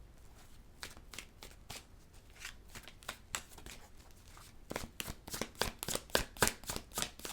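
A deck of tarot cards being shuffled by hand: quick light card flicks, scattered at first, then coming thick and fast about two-thirds of the way in.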